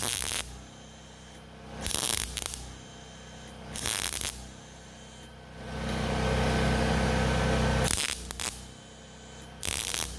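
Welder laying welds on steel exhaust pipe: several short crackling bursts of about half a second, then one longer weld of about two and a half seconds just past the middle with a low hum under it.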